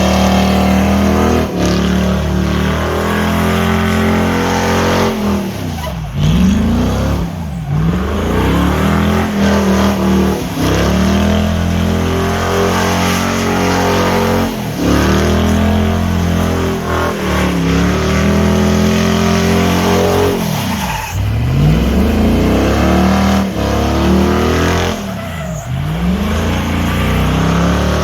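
Rat rod Ford pickup truck doing a burnout: the engine is held at high revs with the tires squealing against the pavement. Every few seconds the revs dip sharply and climb back.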